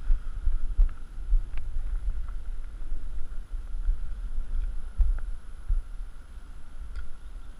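Wind buffeting the microphone, an uneven low rumble, with a few faint clicks scattered through it.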